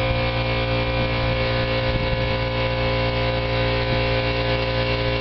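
Electric air compressor running steadily with a constant hum, building up tank pressure.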